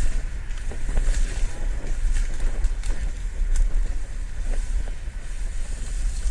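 Wind rumbling on the microphone of a body-worn camera, with a few faint scattered ticks.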